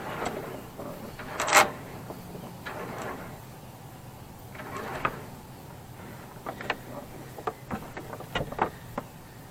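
Halyard rope being hauled through the mast in a series of pulls, each a rasping slide of line, the loudest about a second and a half in. Several short clicks and knocks follow in the second half.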